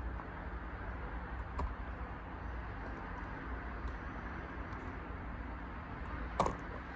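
Steady low background rumble and hiss, with a few faint clicks and one sharper click near the end.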